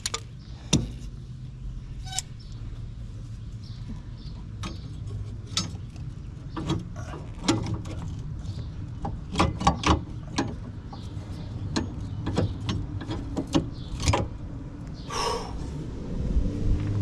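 Scattered sharp metallic clicks and clanks of tools and metal parts being handled, over a steady low hum.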